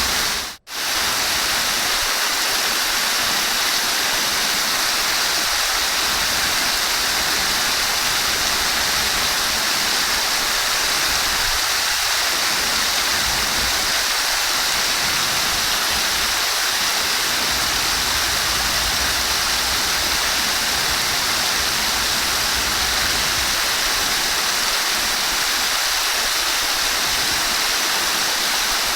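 Steady rush of flowing water, with the sound cutting out for a moment about half a second in.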